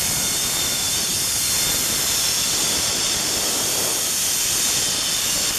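Zip-line trolley pulleys running fast along the steel cable: a steady, high hiss.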